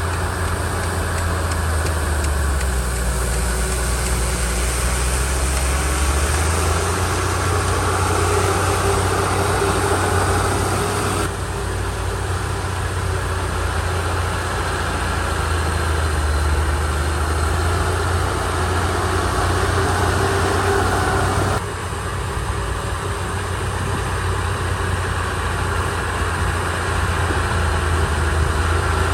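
Komatsu D31 crawler bulldozer's diesel engine running steadily under load, its low drone rising and falling in pitch as it works. The sound changes abruptly about eleven seconds in and again about twenty-one seconds in.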